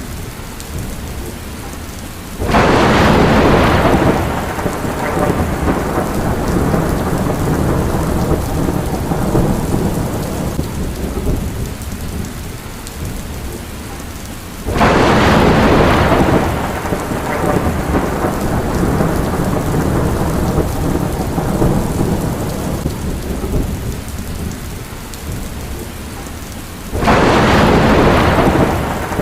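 Steady heavy rain with three peals of thunder, about twelve seconds apart, each breaking in suddenly and rumbling away over several seconds.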